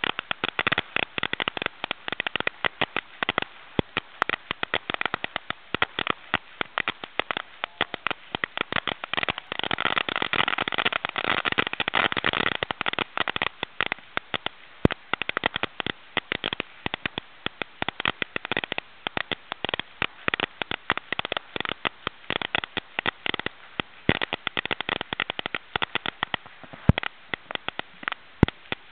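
Large bonfire of a burning wooden effigy crackling and popping: a dense run of sharp pops throughout, thickest about ten seconds in.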